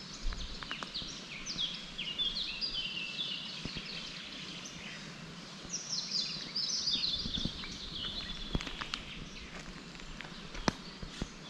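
Songbird singing in forest: two long runs of quick, stepping notes that fall in pitch, one starting about a second in and another about six seconds in, with a few faint clicks.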